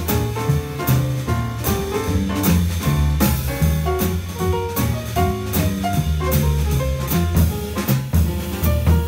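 Live small-group jazz: acoustic grand piano playing over double bass and a drum kit, with steady cymbal and drum strokes keeping time.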